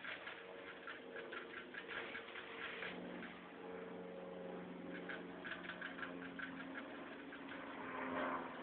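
Rabbit drinking, licking in a quick, even rhythm of small clicks, about five a second, which fade for a while in the middle.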